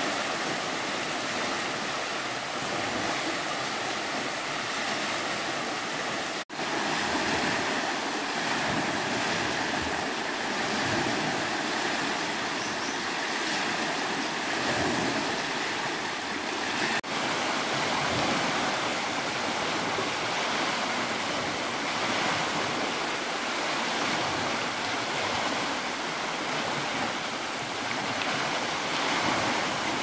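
Running water, a stream or waterfall, rushing steadily. It drops out for an instant twice, about a third of the way in and again past the middle.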